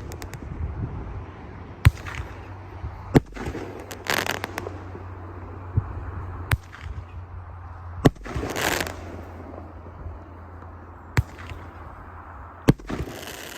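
A 500-gram fireworks cake firing its shots one after another: about six sharp bangs spaced one to three seconds apart, several followed by a brief crackling hiss from the breaks.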